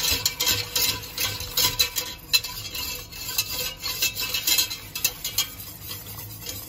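Wire balloon whisk scraping and clicking against the sides and bottom of a stainless steel saucepan in quick, uneven strokes, whisking milk into a butter-and-flour roux for a béchamel sauce.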